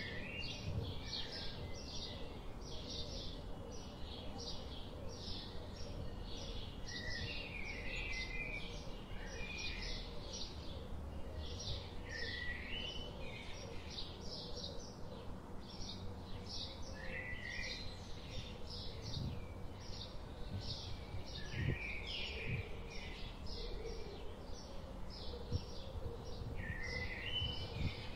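Small birds chirping outdoors: one repeats a short high note about twice a second, and others twitter now and then, over a steady low background noise.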